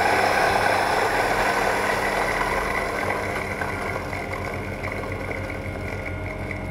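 MKS-GRD40A electric coffee grinder's 200-watt motor running steadily while it grinds roasted coffee beans at its finest setting, a steady hum with a grinding rasp that slowly gets quieter.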